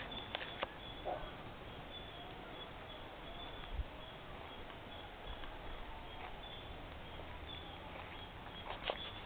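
Outdoor garden ambience: a steady hiss with short, high bird chirps repeating now and then, and a few sharp clicks shortly after the start and again near the end.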